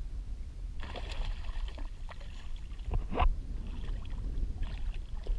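Water sloshing and splashing against the side of a small plastic kayak, over a steady low rumble of wind on the microphone. A short, sharper noise comes about three seconds in.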